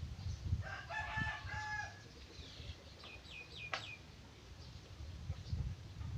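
A bird calling: one drawn-out call lasting about a second, then a quick run of short, high, falling chirps and a sharp click.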